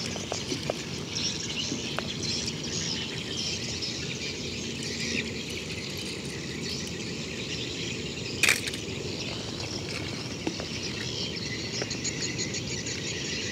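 Outdoor ambience: a steady high hiss of insects with a rough low background noise, broken by a few small clicks of die-cast metal toy cars being handled over loose stones, the loudest about eight and a half seconds in.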